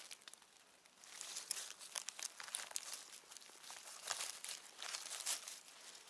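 Forest floor litter and undergrowth rustling and crackling irregularly, disturbed close to the microphone, with a quieter moment in the first second.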